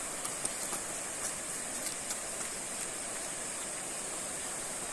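Steady rush of flowing river water, with a steady high-pitched hiss over it and a few faint clicks in the first couple of seconds.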